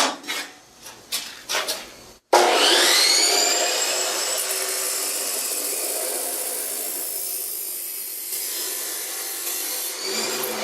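A few metal clanks, then a chop saw starts about two seconds in, its whine rising as the blade spins up, and cuts steel with a steady loud grinding; the whine begins to fall near the end as the blade slows.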